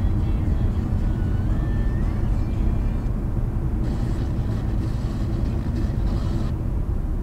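Steady low rumble of road and engine noise heard inside a moving car's cabin. A faint tone glides upward in the first few seconds, and a higher hiss comes in for a couple of seconds midway.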